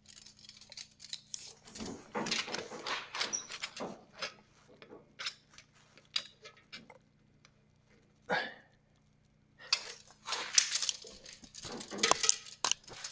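Hand-tool work on the height-adjusting bolts and jam nuts of a Frontier OS27 sawmill head: irregular metal clicks, scrapes and knocks with short quiet gaps.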